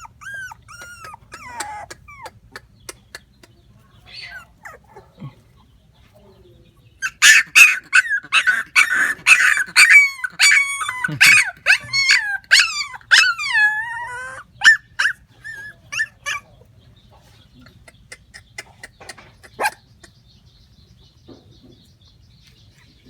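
Puppies whining and yelping: a few whines at the start, then a loud run of many overlapping yelps and whines from about seven seconds in to about fourteen seconds, dying away to scattered clicks.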